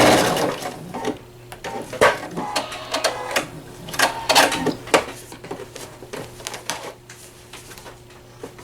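PFAFF Quilt Expression 4.0 sewing machine stops stitching right at the start, then a run of irregular mechanical clicks and clatters from the machine's thread cutter and the handled fabric, over a faint steady hum. The thread cutter fails to cut: an extra piece of thread is caught and tangled under the needle plate.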